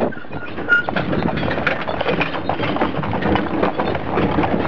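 A team of horses galloping, their hoofbeats mixed with the rattle and rumble of the chuckwagon they are pulling, in a dense, continuous clatter.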